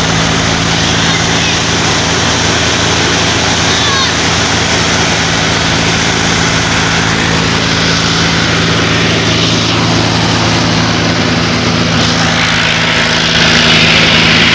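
Mahindra 265 DI tractor's three-cylinder diesel engine running steadily under load, driving a threshing machine that blows out straw and chaff. The thresher's dense noise sits over the engine's steady hum, and it gets a little louder near the end.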